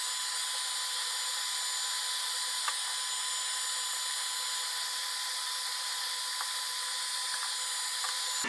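Steady hiss of a hot-air blower heating the phone to soften the adhesive under the glass, with a few faint ticks.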